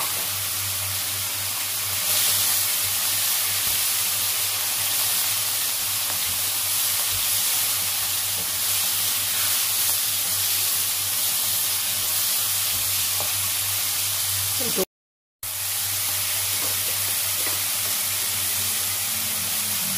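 Long beans and mixed vegetables sizzling in hot oil in a wok, a steady frying hiss, as they are stirred with a wooden spatula. The sound cuts out for about half a second roughly three-quarters of the way through, then the sizzling resumes.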